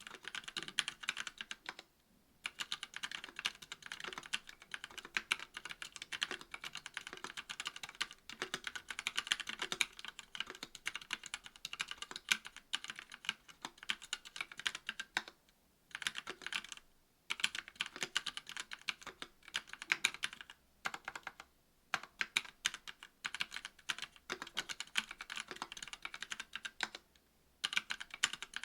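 Continuous typing on a KBD67 V2 MKII mechanical keyboard with a brass plate, stock Kailh Pro Burgundy 50 g linear switches and GMK keycaps: rapid keystroke clicks in bursts, broken by several short pauses.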